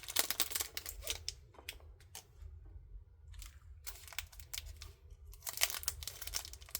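Plastic packaging crinkling and tearing as it is split open and handled, with many small clicks and taps. It goes quieter for about a second in the middle, then picks up again busily near the end.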